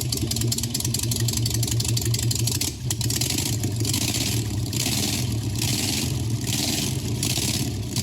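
A steadily running engine with a low drone. From about halfway in, a hiss surges and falls back a little under once a second.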